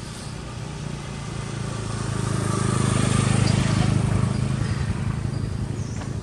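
A motor vehicle engine passing by on the road, growing louder to its peak about three and a half seconds in, then fading away.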